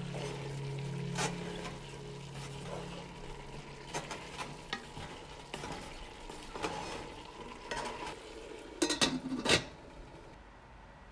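Wooden spoon stirring chopped vegetables into sizzling ground beef in a metal pot, with scattered scrapes against the pot. A quick run of loud metal clacks comes about nine seconds in as the lid goes on.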